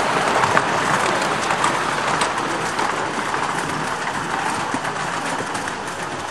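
Miniature-railway carriages rolling by, their small wheels clattering and clicking over the track joints and points, slowly getting quieter as the train moves away.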